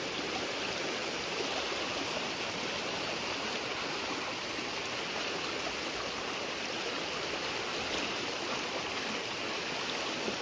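Flash-flood water rushing steadily down a creek swollen by heavy rain upstream.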